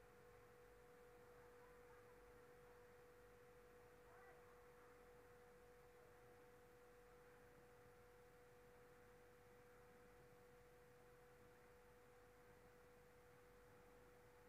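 Near silence with a faint steady hum at one pitch that does not change.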